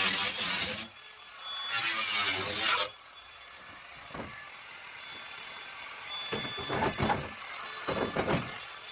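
A power tool run in two short bursts during metal work on a vehicle floor pan, then a few quieter knocks and scrapes.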